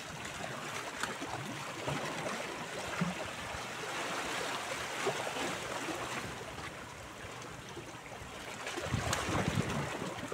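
Small waves lapping against a rocky shoreline, with wind noise on the microphone that swells louder and deeper about nine seconds in.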